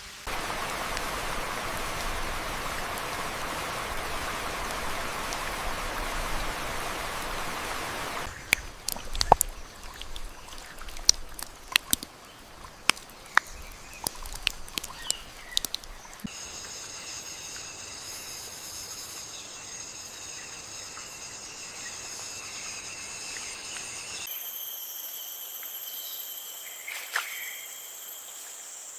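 Rain falling steadily, cutting out after about eight seconds to scattered sharp drips and ticks; from about halfway on, a chorus of insects shrills in several steady high-pitched layers.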